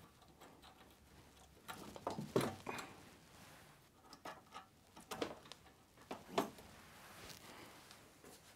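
Faint scattered clicks and light rattles of the Sinclair C5's front brake cable being worked free of its caliper by hand, with the sharpest clicks about two and a half and six and a half seconds in.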